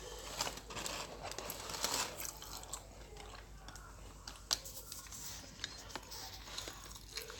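A person chewing a mouthful of fast food close to the microphone, with a run of crunchy clicks and mouth sounds.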